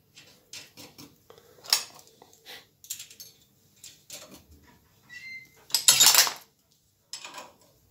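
Small steel nuts and bolts clinking and tapping against a steel plate as they are set onto studs and started by hand. There are scattered light clicks, a brief metallic ring just after five seconds, and a louder clatter about six seconds in.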